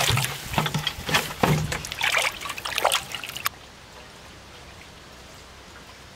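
Hands swishing cut fish pieces around in water in a steel bowl, washing them, with irregular splashes and sloshes. It cuts off suddenly about three and a half seconds in, leaving only a faint steady hiss.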